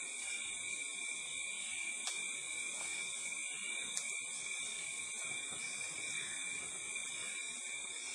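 Rainforest insect chorus: a steady high-pitched drone held on a few fixed pitches, with a couple of faint clicks.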